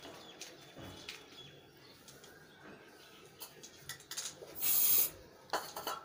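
An aerosol spray-paint can giving one short hiss of about half a second near the end, then a second brief burst. Faint clicks and paper rustling come before it.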